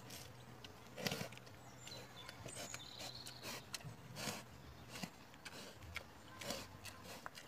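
Wild boar snuffling and eating food scraps off the ground: faint, irregular short sniffs and crunches, the loudest about a second in.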